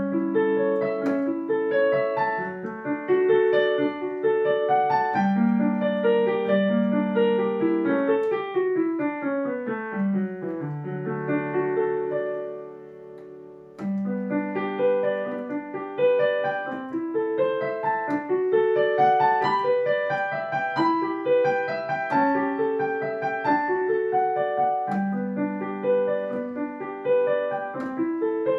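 Solo piece played on a digital piano, a steady flow of notes in both hands. About nine seconds in, a run of notes descends into a held low chord that fades away, and the playing starts again a little after the midpoint.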